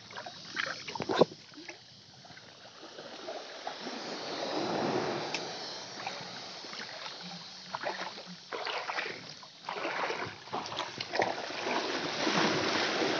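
Shallow seawater sloshing and splashing around someone wading, swelling and easing, with scattered sharp knocks and clicks of handling close to the microphone, the sharpest about a second in.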